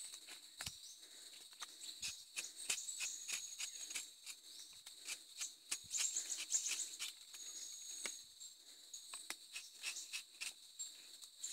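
Rubber-tapping knife shaving a thin strip of bark along the tapping cut of a rubber tree, a rapid, irregular series of small scraping clicks. Insects trill steadily in the background.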